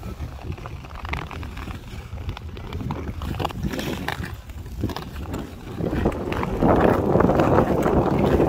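Ice skate blades scraping and gliding on canal ice stride after stride, with wind rumbling on the microphone. It gets louder about six seconds in.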